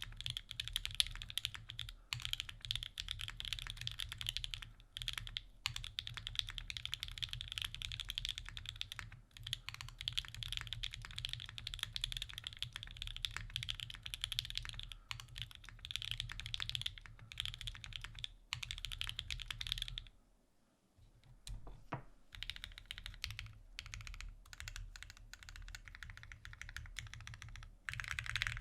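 Fast, continuous typing on a custom mechanical keyboard with lubed 43Studio OP Black linear switches, GMK keycaps and an aluminum plate. The typing stops for about a second and a half about twenty seconds in, then carries on a little more lightly.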